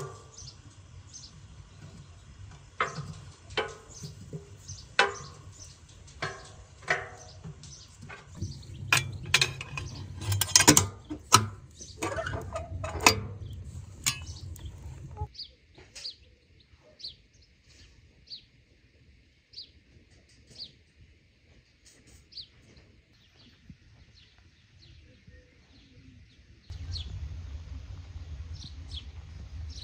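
Irregular sharp knocks and clinks of kitchenware, pots and utensils, thickest about nine to fourteen seconds in. After that, in a quieter stretch, a bird calls in short high chirps about once a second.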